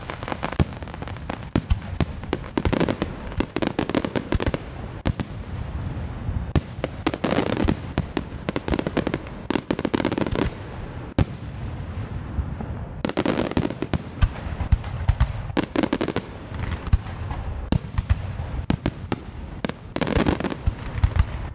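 Fireworks display: aerial shells bursting overhead in a dense barrage of sharp bangs, several each second.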